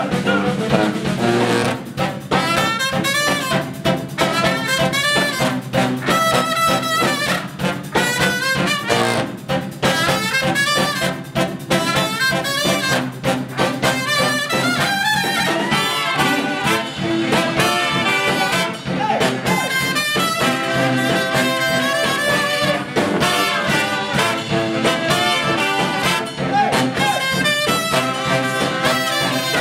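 Brass band playing: trumpet, trombone, tenor and baritone saxophones and sousaphone over a drum kit keeping a steady beat.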